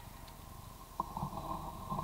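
A drever hound growling over a shot roe deer, a rough, sustained growl that grows louder about a second in.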